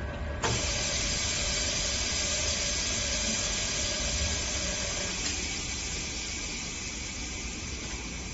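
OCA screen laminating machine hissing with rushing air, starting suddenly about half a second in over a low machine hum; the hiss thins at about five seconds but keeps going.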